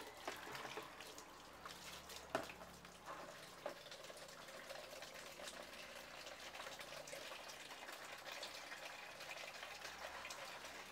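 Water from an open tap pouring in a steady stream into a plastic basin, filling it. A sharp knock comes at the start and another about two seconds in.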